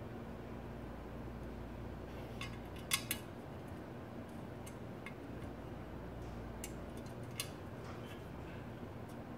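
Small metal parts of a model Stirling engine kit clicking and tapping as they are handled during assembly: a few short, sharp clicks, the loudest a close pair about three seconds in.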